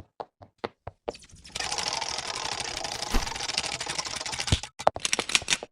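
A few sharp clicks, then a dense, fast mechanical rattle of clicks for about three and a half seconds, breaking up into single clicks again near the end.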